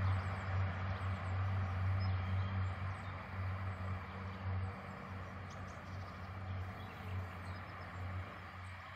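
Diesel train engine running with a steady low hum that slowly fades away, with faint bird chirps.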